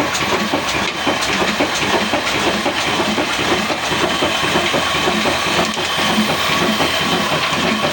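Kala diesel engine running steadily on furnace oil, with a dense, rapid mechanical clatter and a hiss.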